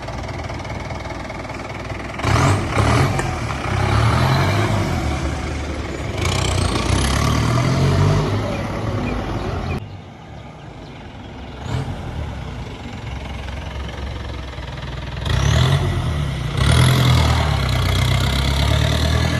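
Vehicle engine running, swelling louder three times, about two, six and fifteen seconds in, with rising rev-like glides, and easing off in between.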